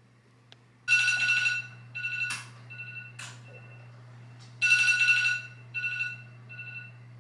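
Smartphone alarm tone ringing: a high tone sounding in a loud burst followed by shorter, fainter pips, the phrase repeating about three and a half seconds later. Two brief swishes sound about two and a half and three and a quarter seconds in.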